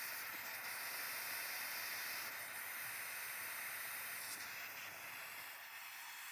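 Butane pencil torch flame hissing steadily while it heats a soft-soldered brass joint to remelt the solder, a little quieter near the end.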